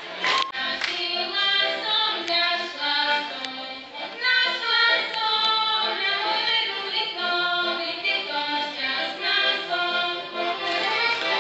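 Folk music on the heligonka, a Slovak diatonic button accordion, with voices singing along in a group.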